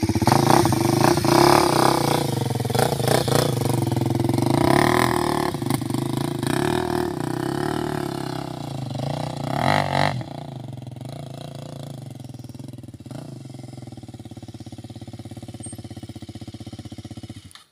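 A UM 125cc motorcycle's single-cylinder engine running close by, its pitch rising and falling as it is revved and ridden off. About ten seconds in it grows markedly fainter as the bike moves away, and the sound cuts off abruptly just before the end.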